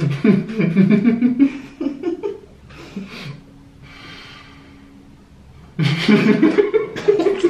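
Stifled giggling and laughter through closed lips, from people holding mouthfuls of water. It goes quieter in the middle, then breaks into a louder burst of laughter near the end.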